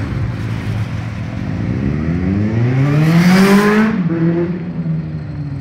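Motorcycle engine revving up, its note rising for about two seconds to a loud peak about three and a half seconds in, then dropping to a lower, steadier note.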